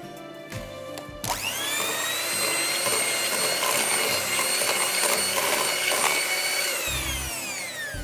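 Electric hand mixer switched on about a second in, its motor whining up to speed, then running steadily as its beaters whip a cream cheese and peanut butter mixture in a glass bowl. Near the end it is switched off and the whine falls in pitch as the motor winds down.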